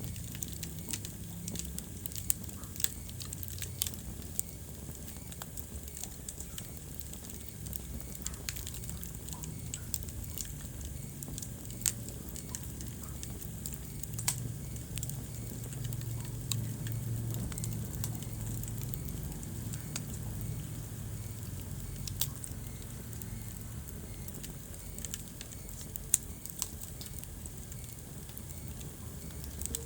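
Wood fire burning in a fireplace: irregular crackling with scattered sharp pops over a steady low rumble of flame, a few pops standing out louder.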